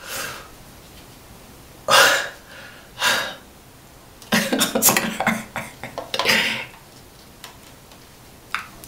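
A woman's sharp, noisy gasps about two and three seconds in, then a longer pained, strained cry. She is trying to pull a hair-removal strip that is stuck to her upper lip.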